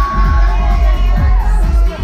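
Loud pop music with a heavy, pulsing bass beat, with a crowd shouting and cheering over it.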